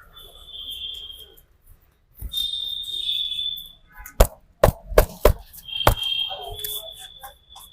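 A barber's hands slapping a customer's head during a head massage: a quick run of about six sharp smacks partway through. A high, whistle-like tone sounds on and off around them.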